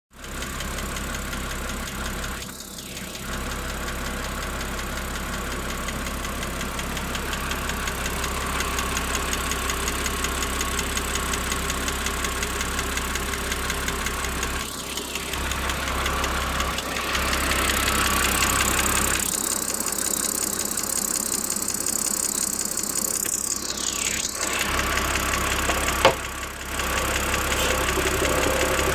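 BMW 330i's N52 straight-six engine running warmed up, with a fast, even ticking over the engine sound: the ticking that comes on 10–15 minutes after a cold start. The deep part of the engine sound drops away for a few seconds past the middle, and a single sharp knock sounds near the end.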